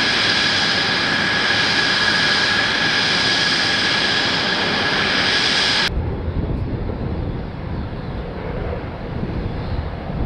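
Jet aircraft engine running with a steady high whine. About six seconds in it cuts off abruptly to a lower, quieter rumble of aircraft flying over.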